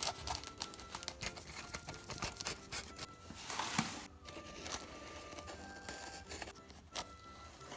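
A safety-razor blade scraping and slicing into a taped cardboard box: scattered clicks and scratches, with a longer tearing scrape about three and a half seconds in. Soft background music with sustained notes plays underneath.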